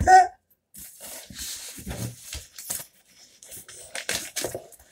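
Cardboard mailer box being torn open and handled: a brief loud squeal at the very start as a strip is pulled away, then irregular rustling and scraping of the cardboard flaps being folded back.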